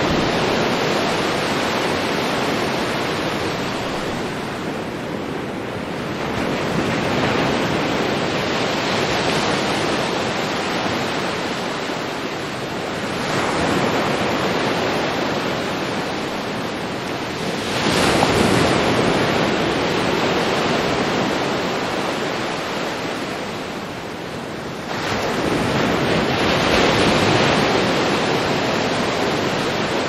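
Ocean surf: waves breaking and foam washing in a continuous rushing hiss. It swells four times as waves break, about every five to seven seconds, and eases between them.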